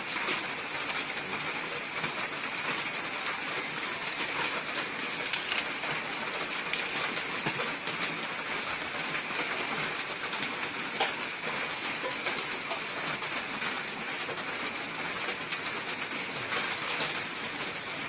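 A steady hiss with a few faint clicks scattered through it.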